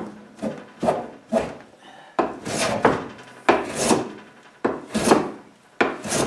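Hand plane cutting shavings from a wooden board in a series of short, repeated strokes.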